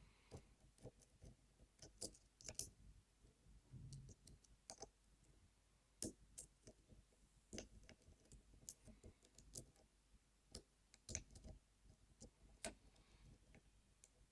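Faint, irregular metallic clicks of a pick working the pins of a circular-keyway lock under light tension, with small ticks as pins set and the core turns slightly.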